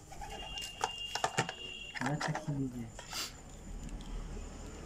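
A handful of sharp clicks and light knocks from handling a phone charger and its USB cable in the cardboard box, strongest about a second in, with one more near three seconds. A brief background voice about two seconds in, and a thin steady high tone during the first two seconds.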